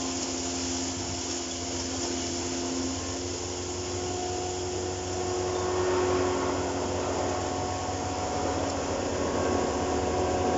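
A 3 HP single-phase electric feed grinder with a cyclone blower running steadily: a motor hum and a few steady tones over a rush of blown air.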